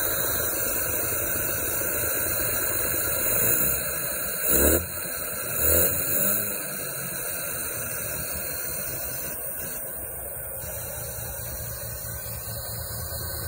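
Bridgeported Mazda 12A rotary engine idling steadily through its Nikki carburettor, with two short throttle blips that rise and fall, about four and a half and six seconds in.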